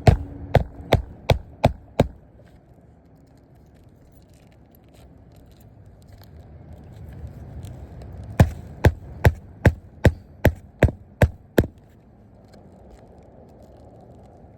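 Hammer striking at a steady pace in two runs, about six blows and then, after a pause of several seconds, about nine more, as in a shingle repair on a roof.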